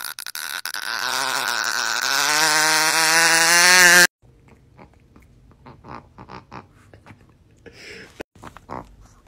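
A small dog howling into an earphone microphone held at its mouth: one drawn-out, wavering howl that grows louder and cuts off about four seconds in. Then quieter chewing and smacking as the dog eats.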